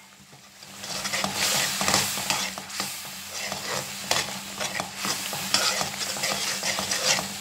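Metal spoon stirring and scraping through a thick masala in a frying pan while it sizzles in oil, the masala being fried down (bhuna) until the oil separates. The stirring and sizzling pick up about a second in, with frequent sharp scrapes of the spoon against the pan.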